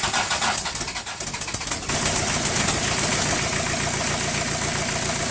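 VW turbo diesel engine being started: it turns over unevenly for about two seconds, then catches and settles into a steady idle. Its injection-pump throttle, which had been stuck, has been freed, and it now idles normally instead of running away at high idle.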